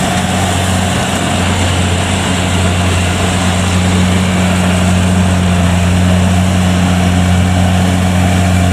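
Kubota DC70 combine harvester's diesel engine and machinery running steadily as it cuts rice, an even hum that grows a little louder as the machine draws closer.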